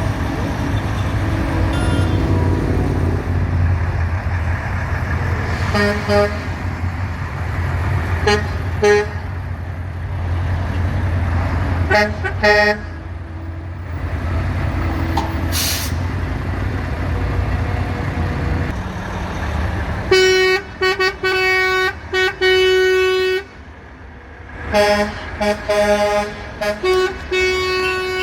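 Trucks in a convoy sounding their air horns over a steady rumble of diesel engines and road noise. First come a few short toots, then from about two-thirds of the way through long, loud horn blasts, one after another.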